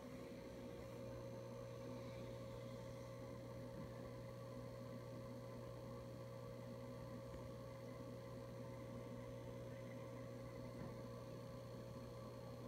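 Saltwater aquarium's pump running with a faint, steady electrical hum and a thin high tone above it.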